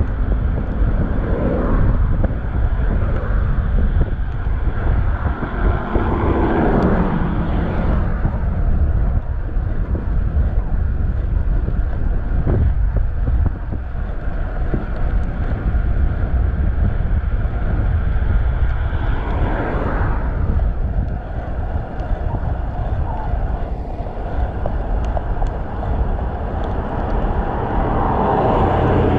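Wind buffeting a chest-mounted action camera's microphone as the bicycle rolls along, a steady low rumble, with road traffic passing and swelling up about three times, near the start, in the middle and near the end.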